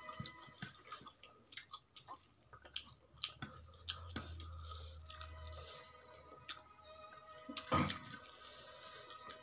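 Close-up mouth and hand sounds of eating rice by hand from a steel plate: chewing and smacking with small clicks, over faint background music. A louder bump comes near the end.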